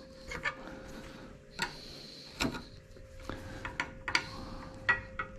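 Irregular light clicks and scrapes of a thin metal tool working inside the hollow arm of a Power-Pole anchor, prying out its spacers, over a faint steady hum.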